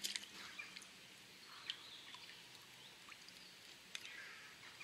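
Quiet riverbank ambience: a faint steady hiss with a few soft clicks while a trout is unhooked in the shallows, and faint bird calls.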